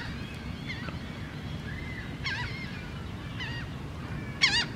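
Bird calls: short, high squawking calls with quick up-and-down pitch bends, repeated about once a second, the loudest about four seconds in. A steady low rumble runs underneath.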